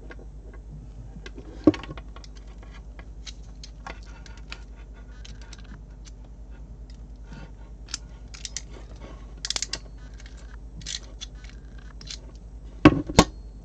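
Small clicks and rustling as an RJ45 plug on network cable is handled and seated in a crimping tool, then two sharp, loud clicks close together near the end as the crimper closes on the plug.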